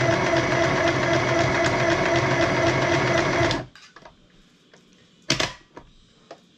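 Small electric mini sewing machine running steadily, its needle stitching with a fast, even ticking over a low motor hum, then stopping abruptly about three and a half seconds in. A few short clicks follow, the loudest about five seconds in.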